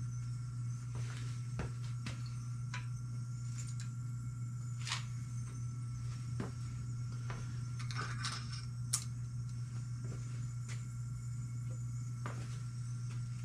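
Scattered light clicks and metal clinks of small parts and tools being handled on a workbench, with a short cluster of clinks about eight seconds in, over a steady low hum.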